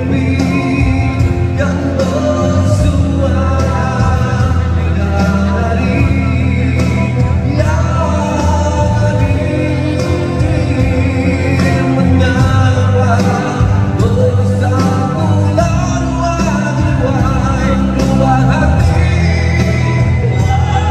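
A man singing a song into a microphone over backing music with a steady bass line and beat, amplified through a stage PA.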